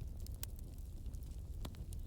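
Wood fire crackling: a low steady rumble with scattered sharp pops, the loudest about half a second in.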